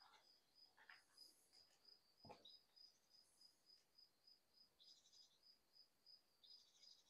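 Faint, steady insect-like chirping in a rapid, even pulse of about four chirps a second, with a few brief higher twitters near the end and a single soft knock a little after two seconds in.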